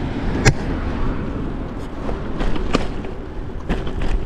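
Kona Rove gravel bike on wide WTB Byway tyres rolling over a rough surface: a steady tyre rumble under wind on the microphone, with several sharp knocks as the bike jolts over bumps.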